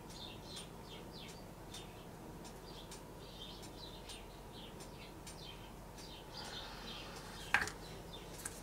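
Faint birds chirping in the background, a steady scatter of short, high chirps. A single soft knock comes about seven and a half seconds in.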